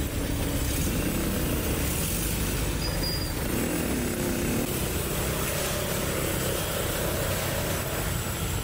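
Air-cooled flat-four engine of a classic Volkswagen Beetle running steadily at low revs.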